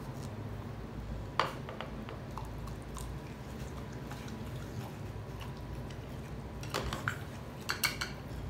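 A dog being hand-fed pasta from wooden chopsticks: a sharp click of chopsticks against the bowl about a second and a half in, then soft chewing of the noodles, with a few more clicks and wet mouth smacks near the end as the dog licks his lips.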